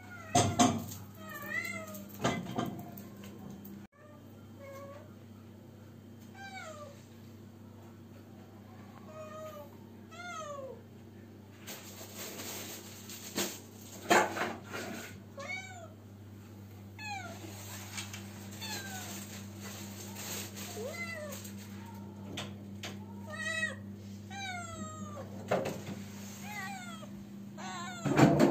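A cat meowing over and over, drawn-out calls that bend up and down in pitch, one every second or two: a cat calling for a mate. A few loud bumps sound near the start and about halfway through.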